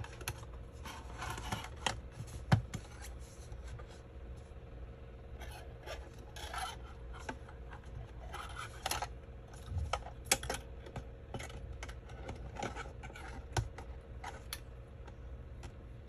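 Hard plastic router housing and its front panel being handled and fitted together: scattered clicks, taps and scraping, with a sharp click about two and a half seconds in. A steady low hum runs underneath.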